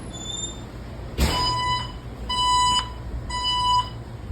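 Fire alarm system sounding its evacuation signal: three high, steady beeps, each about half a second long with half-second gaps, the three-pulse temporal evacuation pattern. A sharp click comes as the first beep starts.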